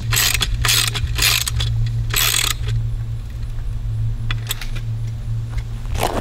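Hand ratchet wrench tightening a bolt that fastens a steel keypad mounting bracket to a wooden 4x4 post: four quick bursts of ratchet clicking in the first two and a half seconds, then a few scattered clicks. A steady low hum runs underneath.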